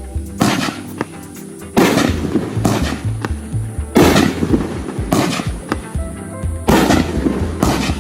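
Consumer fireworks going off: about seven sharp bangs in eight seconds, each dying away over a fraction of a second, over background music with a stepping bass line.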